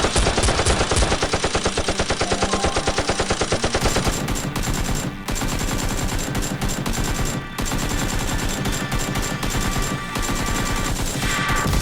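Rapid automatic gunfire: fast, evenly spaced shots in long unbroken bursts.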